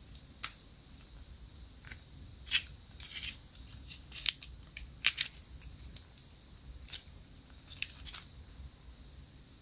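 Fingers and long nails handling a small plastic dorayaki-shaped charm, making about a dozen short, crisp, irregular clicks and crinkles.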